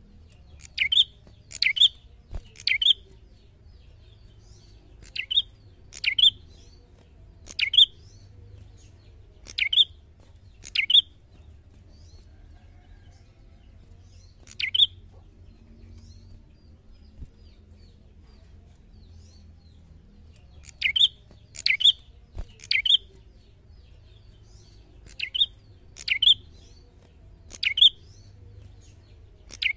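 A caged prenjak giving short, sharp, high chirps, mostly in clusters of two or three about a second apart, with a pause of a few seconds midway. This is the loud, repeated challenging song that bird keepers call narung.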